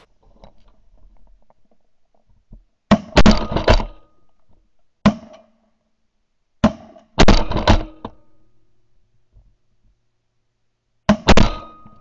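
Shotgun blasts recorded close up by a gun-mounted camera, coming in volleys: a quick cluster about three seconds in, a single shot near five seconds, another cluster around seven seconds and a pair near the end.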